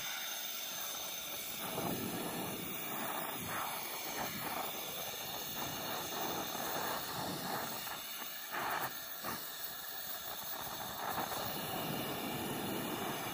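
Burner flame hissing steadily as it plays on an aluminium drink can, with a few brief swells in level.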